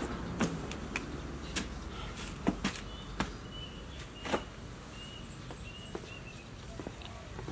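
Rubber boots knocking and scuffing on a concrete floor as they are pulled on and stood up in: a handful of separate sharp knocks. A bird chirps several times in the middle, over a steady low hum.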